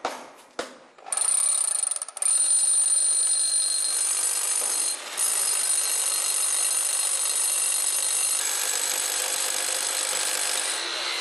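Electric hammer drill boring a hole into concrete: a few light taps, then from about a second in the drill runs steadily with a high whine, with short breaks about two and five seconds in.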